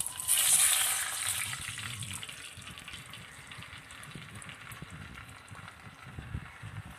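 Buttermilk poured onto hot oil and spices in an earthen pot, setting off a sudden burst of sizzling just after it starts that dies down over the next two or three seconds to a faint hiss.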